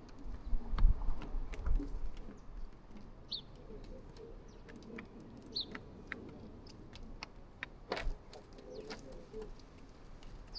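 Birds calling outdoors: a couple of short, high chirps and scattered low calls, among many sharp little clicks and a low rumble in the first two seconds.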